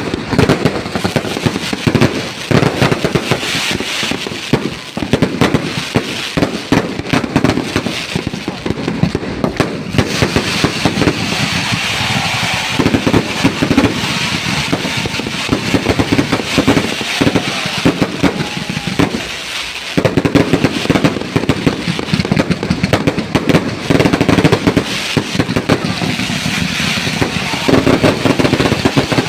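Fireworks going off in a rapid, almost continuous barrage of bangs and crackles, with crowd voices underneath.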